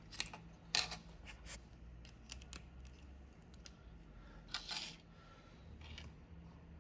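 Plastic model kit parts being handled: a few light plastic clicks and scrapes with faint rustling between them, as pieces are pulled off and fitted back on.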